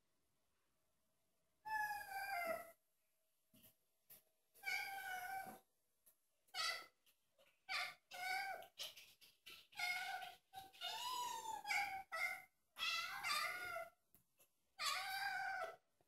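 Thai (traditional Siamese-type) cats meowing over and over: about a dozen short calls, each rising and falling in pitch, starting about two seconds in and then following one another with short gaps.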